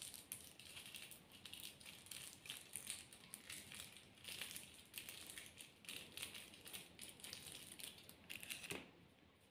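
Faint crinkling of a small plastic-foil sachet of Everyuth face scrub as it is handled and squeezed out by hand, a string of soft irregular crackles that stop near the end.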